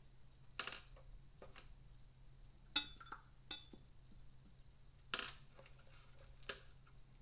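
A few scattered light clinks and knocks of small hard objects, the loudest a short ringing clink nearly three seconds in, over a faint low hum.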